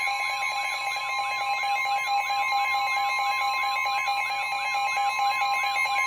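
Several NOAA weather radios going off together: steady alert tones with a fast warbling siren about three times a second over them. This is the alarm that comes before a tornado warning broadcast.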